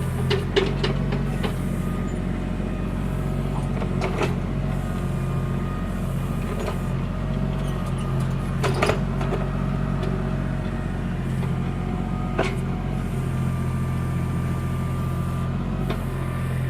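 Backhoe engine running steadily while it digs, with a few sharp knocks now and then.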